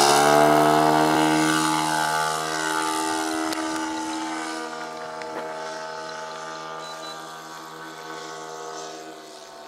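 O.S. 91 Surpass four-stroke glow engine of a radio-controlled P-51 model running at full throttle, its steady note fading gradually as the plane flies away.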